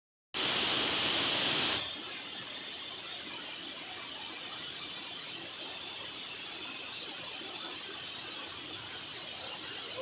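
Steady rushing hiss of water falling over rocks from small waterfalls. For the first second and a half a louder, brighter hiss sits on top, and it cuts off abruptly.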